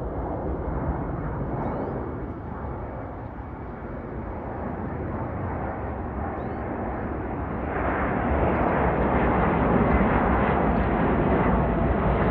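Boeing C-17 Globemaster III's four Pratt & Whitney F117 turbofan engines in a low banking pass, a steady jet noise heaviest in the low end. It grows clearly louder about eight seconds in as the aircraft comes overhead.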